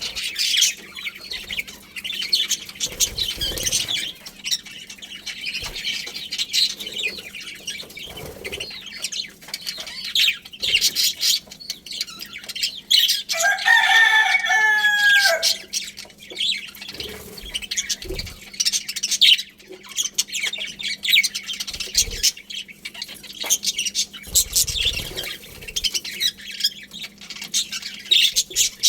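A colony of budgies chattering: a dense stream of rapid, high chirps and warbles. About halfway through, a drawn-out call lasting about two seconds, sliding slightly down in pitch, rises above the chatter.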